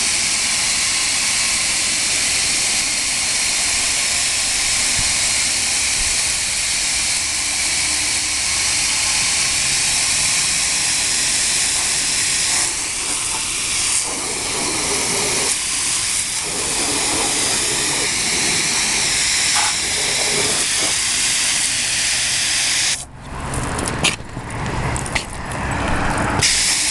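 Water spray from a hose nozzle hissing steadily against a rooftop unit's condenser coil as the coil cleaner is rinsed off. Near the end the spray cuts off suddenly and comes back on and off several times.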